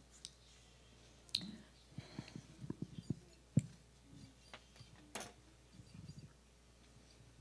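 Handling noise from a handheld microphone held close to the mouth: scattered soft clicks and a quick run of low bumps a couple of seconds in, with two short breathy hisses, one early and one about five seconds in.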